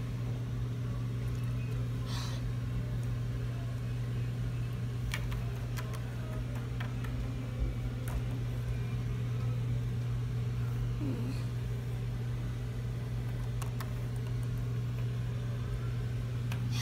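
Steady low hum from a running fan or appliance, with a few light clicks and taps of plastic toys being handled.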